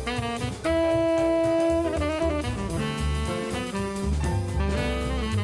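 Jazzy background music: a melody line over bass and drums, with one long held note about a second in.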